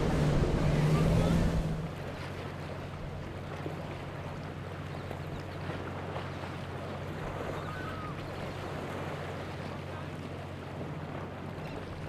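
Boat engines running through rough water, with the rush and splash of churning wake. The first two seconds are loud, then it drops suddenly to a quieter steady outboard motor hum over lapping, splashing water.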